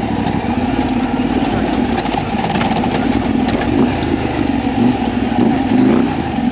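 KTM 890 Adventure R's parallel-twin engine running as the bike is ridden on a dirt trail, its pitch rising and falling with the throttle.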